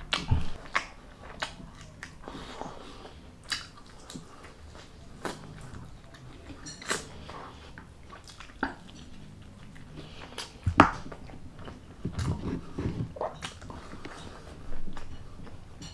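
A person eating close to the microphone: chewing and biting, with scattered sharp crunches and crackles, the loudest about eleven seconds in.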